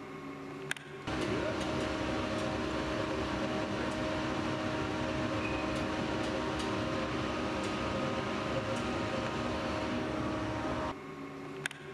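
Loring coffee roaster running: a steady rush of air with a hum in it, cutting in abruptly about a second in and dropping out briefly near the end with a click.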